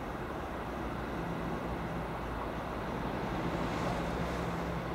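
DB Class 440.2 (Alstom Coradia Continental) electric multiple unit running slowly toward the listener through the points. A steady low hum sets in about a second in, and the sound grows gradually louder as the train nears.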